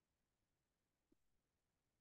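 Near silence: a pause in a recorded lecture, with only a very faint background hiss.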